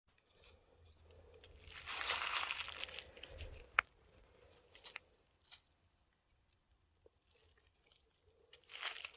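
Footsteps crunching through dry leaf litter, with a sharp click a little before four seconds in and a few faint ticks, then a near-silent stretch before the crunching picks up again near the end.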